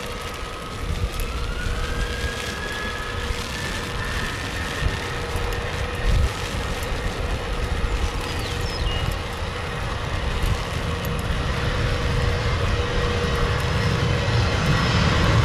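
Jet airliner engines running with a steady whine, one tone rising in pitch about a second in, over a low rumble that builds toward the end.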